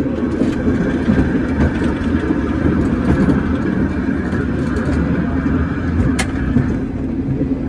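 San Francisco cable car running along its track: a steady rumble from the wheels on the rails and the cable running in the slot beneath the street, with one sharp click about six seconds in.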